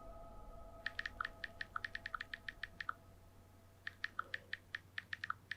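Typewriter keys being struck in two quick runs of about eight strokes a second, with a pause of about a second between them. A faint steady tone fades out just before the typing starts.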